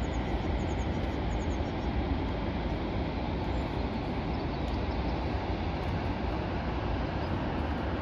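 Steady roar of the Rhine Falls: rushing water heard as an even, unbroken rumble. A few faint high chirps sound in the first second or so.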